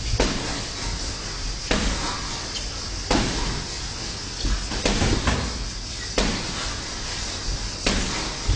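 Boxing sparring: irregular dull thuds of gloved punches and footwork on the ring canvas, coming about every second or two over a steady hiss.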